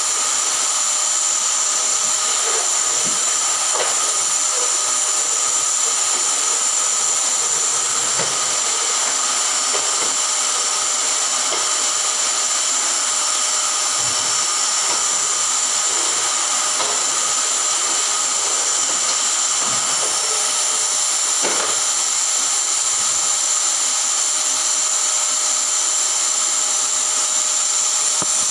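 Drum-type canister vacuum cleaner running steadily, a high motor whine over the rush of suction air, with a few faint knocks scattered through.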